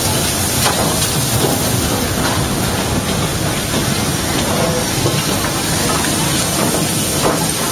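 Two double-heading steam locomotives, 30777 Sir Lamiel and the Bulleid West Country class 34007 Wadebridge, passing close by with a steady, loud hiss of steam.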